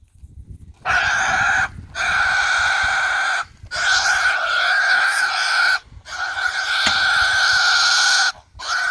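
A wild hog, just speared, squealing in pain: long, loud, steady screams, four in a row with short breaks for breath between, starting about a second in.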